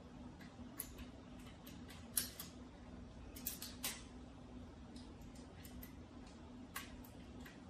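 Irregular light clicks and taps of the SX-10 slingshot rifle's metal frame and grip parts being handled and fitted together, the sharpest click about two seconds in and a small cluster a little after three seconds, over a faint steady hum.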